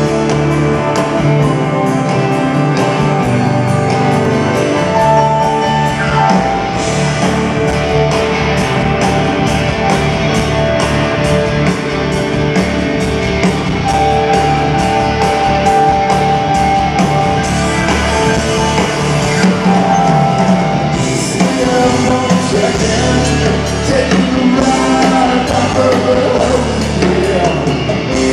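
Live rock band playing in a large hall, heard from the audience seats: drum kit keeping a steady beat under electric guitar and a singing voice.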